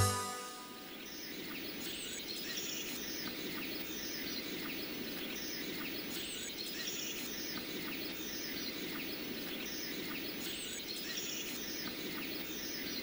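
Music cuts off at the very start, leaving a quiet, steady outdoor ambience: small birds chirping repeatedly over a low, even background hiss.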